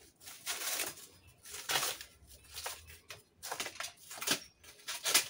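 Dry banana leaves rustling and tearing as they are stripped by hand from a banana plant's trunk, in a series of short, irregular bursts.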